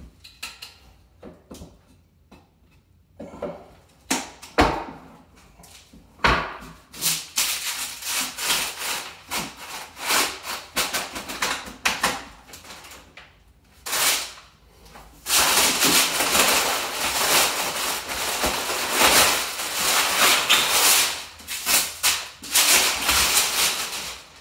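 Several sharp knocks in the first few seconds, then long stretches of loud rustling and scraping, as a cast iron radiator on a wooden dolly is worked with a pry bar and crumpled protective paper is handled.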